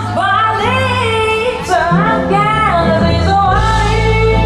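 Live jazz with a woman singing a gliding melody over held bass notes.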